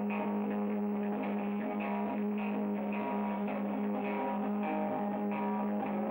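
Loose, droning electric rock jam: a steady low drone note and electric guitar, with a tambourine struck about twice a second.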